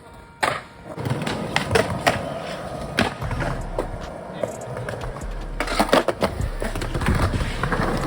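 Skateboard rolling on pavement: a steady wheel rumble with many sharp clacks of the board, the first one sharp about half a second in and a cluster of louder ones around six seconds.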